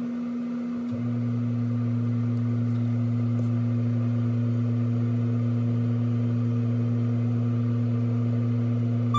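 A steady low hum from an unidentified machine, with a second, lower hum coming in about a second in and holding steady.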